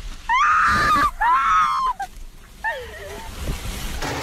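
A person screaming in fright inside a car during a tornado: two long, very high-pitched cries of about a second each, then a shorter cry falling in pitch. Beneath them runs a steady low rumble of storm wind and rain against the car.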